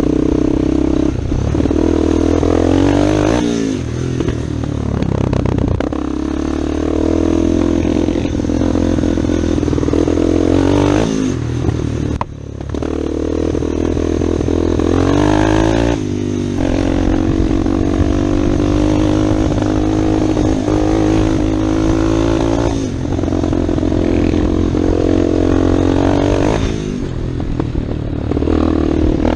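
Yamaha Warrior 350 ATV's single-cylinder four-stroke engine running under way, its note climbing and dropping back several times as the quad is ridden along a dirt trail, over steady wind and trail noise.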